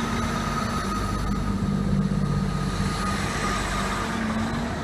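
Class 159 diesel multiple unit pulling out of the station, its underfloor diesel engines running under power with a steady whine over the engine note.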